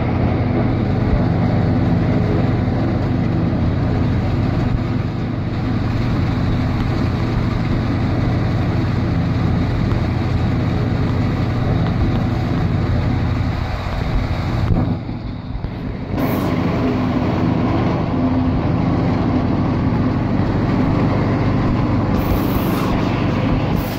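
Tractor engine under load together with a Gehl 400 forage harvester's cutterhead and blower running as it chops standing corn: a loud, steady mechanical drone that eases off briefly about fifteen seconds in.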